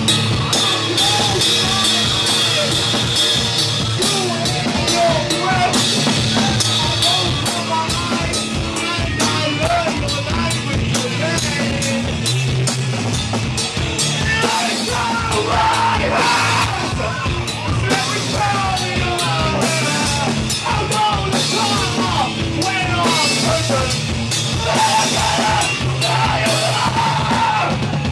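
A live rock band playing loud: a drum kit beating steadily with crashing cymbals under electric guitar and bass, and a singer at the microphone.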